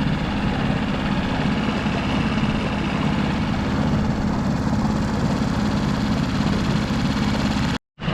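Dinghy outboard motor running steadily under way, a constant engine drone. The sound drops out to silence for a split second near the end.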